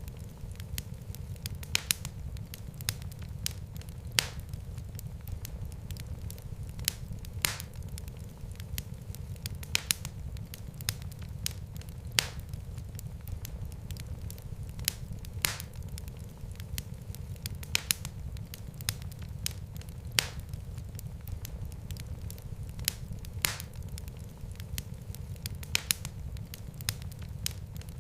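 Fireplace fire crackling: irregular sharp pops and snaps, a few every couple of seconds, over a steady low rumble of the flames.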